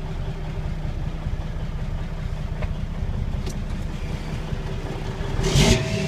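Cummins N14 inline-six diesel engine of a 1998 Kenworth T800 idling steadily, heard from inside the cab as a low rumble with a faint steady hum. A brief noisy burst stands out a little over five seconds in.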